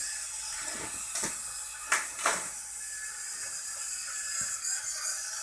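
Small DC gear motors of a hobby Arduino robot car running with a steady whine, with a few sharp clicks about one and two seconds in. The builder remarks that something sounds like it's dragging.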